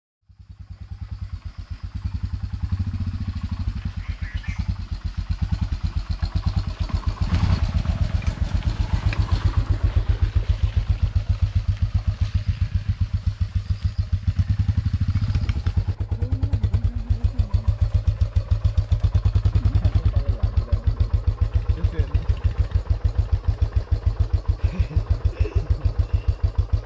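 Motorcycle engine idling with a steady, even beat, fading in over the first couple of seconds.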